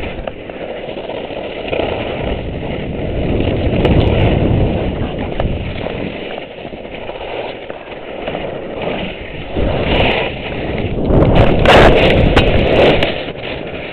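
Skis running through deep powder snow on a tree run, a continuous rushing and scraping with wind noise on the helmet-mounted microphone; it swells about four seconds in and is loudest near the end.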